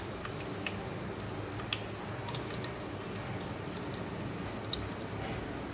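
Whole spices and dried red chillies sizzling in hot mustard oil in a pressure cooker: a steady fine sizzle with many small scattered crackles and pops, over a steady low hum.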